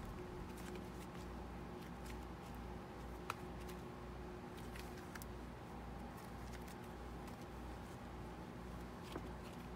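Thick butter slime made with Daiso clay being stretched and folded by hand, giving a few soft clicks and light crackles over a steady low room hum. One sharper click comes about a third of the way in and another near the end.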